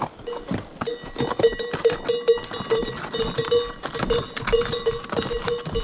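Pack mules and a horse walking past on a rocky trail: many hoofbeats knocking on stone, with a bell on one of the animals ringing over and over in time with the steps.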